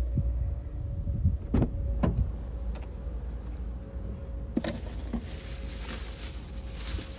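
A coin-operated car-wash vacuum running with a steady hum, with a few sharp knocks as items are handled in the car. From about halfway on, a plastic trash bag rustles as trash is gathered into it.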